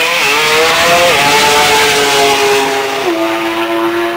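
Drag-race car engine at full throttle, launching hard and accelerating down the strip. The engine note climbs and drops in steps about a second in and again about three seconds in, as it shifts up through the gears.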